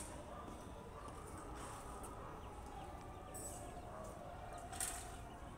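Faint railway station platform background: a steady low rumble with faint wavering tones and a short hiss near the end.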